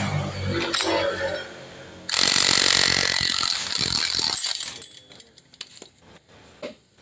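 A workshop air tool runs in one loud burst of about two seconds, starting and stopping abruptly, during the strip-down of a scooter's rattling drive parts. Only faint handling sounds follow.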